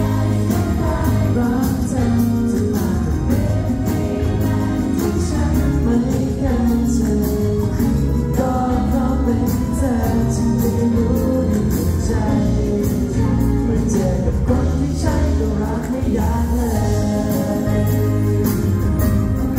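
A male singer sings a pop ballad live into a handheld microphone over amplified instrumental backing with bass and a steady drum beat, heard through the hall's PA.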